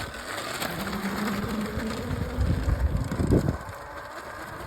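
Electric dirt bike's motor whining as the bike pulls away, a steady whine that rises slightly in pitch and fades near the end.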